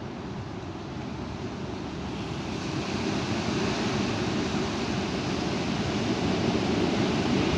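High wind gusting and buffeting the microphone, a steady rush that builds louder over several seconds.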